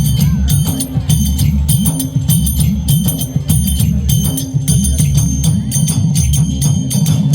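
Festive Indian percussion music: heavy drums with rapid jingling strokes, like bells or a tambourine, in a quick steady rhythm.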